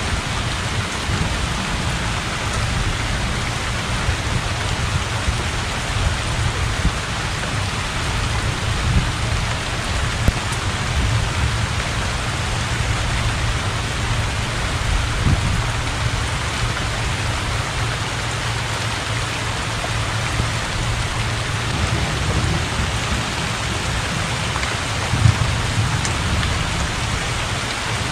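Heavy, steady rain falling on open water and a thatched roof, with a steady low rumble underneath and a couple of louder single hits, around ten seconds in and near the end.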